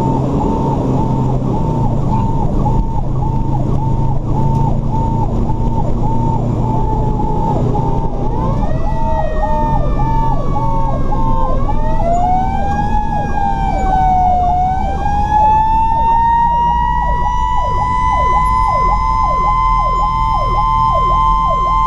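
Fire engine sirens on an emergency response, heard from inside the cab. A fast yelping siren repeats about three times a second throughout. About eight seconds in, a second siren winds up, dips, rises again and then holds a high steady wail. The truck's engine drones underneath.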